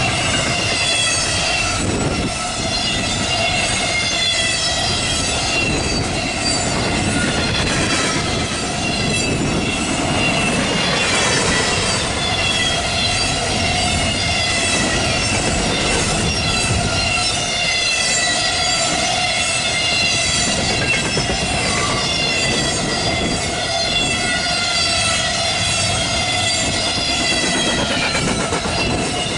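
Norfolk Southern intermodal freight train rolling past at speed: a steady rumble of steel wheels on rail, with high, wavering wheel squeal and ringing over it.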